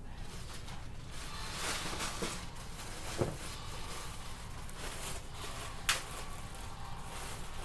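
Clothes rustling and soft handling noises as someone gets dressed, with a brief falling squeak about three seconds in and a sharp click about six seconds in.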